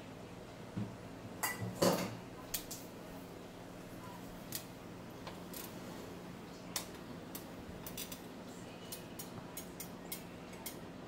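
Kitchen utensils clinking and knocking against a pot and dishes while the soup is handled: a cluster of louder knocks about two seconds in, then a run of light ticks near the end, over a steady low hum.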